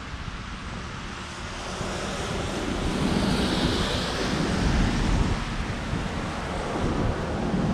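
Street traffic on a wet road: a vehicle's tyre hiss swells a couple of seconds in and fades, with wind rumbling on the microphone.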